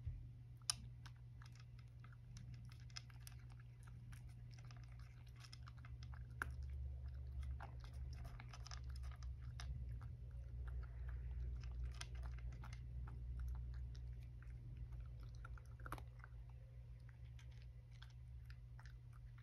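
A cat crunching and chewing dry kibble, a faint, irregular run of small crunches and clicks, over a low steady hum.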